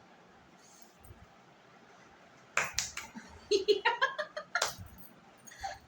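A woman's sharp sniffs and short wordless vocal sounds as she tries to sneeze with prickly heat powder, starting about two and a half seconds in after a quiet stretch; no sneeze comes.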